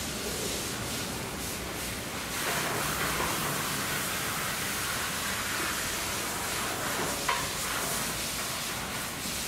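Steady hiss of background noise that gets louder about two seconds in, with a single short click about seven seconds in.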